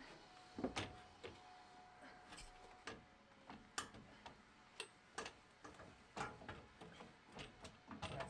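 Faint, irregular clicks and light knocks, about one or two a second, as the front strut assembly is worked into place under the truck.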